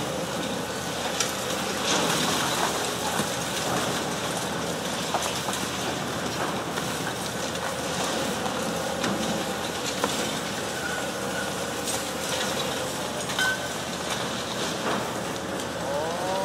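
Demolition excavator chewing into a concrete building: a steady machine hum under continual clattering and crunching of breaking concrete and falling debris.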